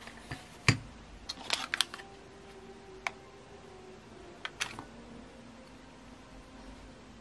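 Scattered sharp clicks and taps: one loud click about a second in, a quick cluster of clicks near two seconds, then single clicks around three and four and a half seconds.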